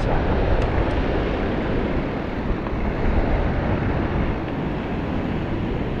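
Steady wind noise on the microphone from riding, mixed with mountain bike tyres rolling on a concrete path.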